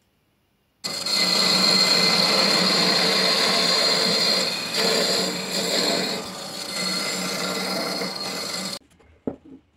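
Wood lathe spinning a wooden sphere while a cutting tool shaves it: the steady hum of the lathe under the hiss and rasp of the cut and the patter of flying shavings. It starts abruptly about a second in and cuts off suddenly near the end.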